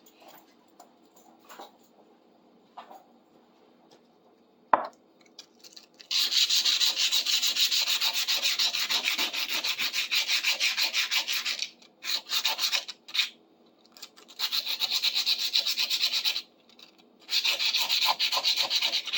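Sandpaper rubbed by hand on a metal fireplace tool in fast back-and-forth strokes, in runs of several seconds with short pauses. A single sharp knock comes a few seconds before the sanding starts.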